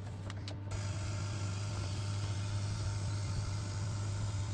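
Toilet cistern fill valve hissing steadily as water flows in to refill the cistern, starting a little under a second in after the supply is turned on, over a steady low hum.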